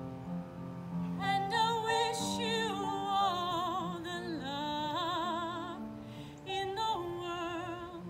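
A woman singing long high notes with strong vibrato over a steady instrumental accompaniment. The voice comes in about a second in, breaks off briefly near six seconds, then goes on.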